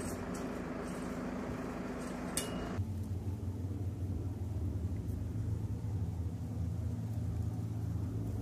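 Steady low engine hum with a faint hiss over it. About three seconds in the sound changes abruptly: the hiss drops away and the low hum grows stronger.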